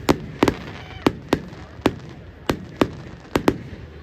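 Fireworks display: a rapid, irregular series of sharp bangs, about ten in four seconds, some coming in quick pairs.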